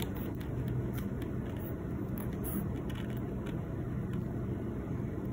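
Steady low background rumble, like distant traffic or a running appliance, with a few faint clicks.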